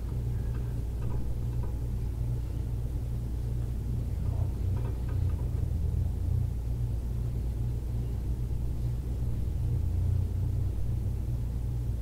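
Steady low mechanical hum at an even pitch, with a few faint, brief sounds over it.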